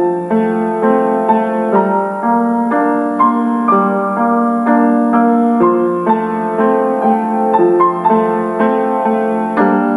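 Background piano music, single notes and chords struck at an even, unhurried pace.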